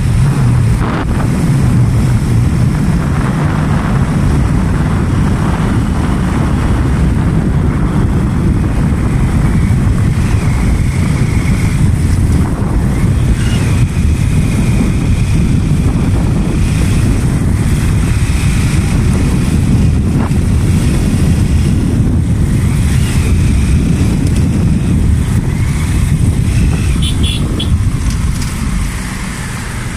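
Motorcycle engine running at road speed with wind buffeting the microphone, a loud steady rumble. The noise eases near the end as the bike slows to a stop.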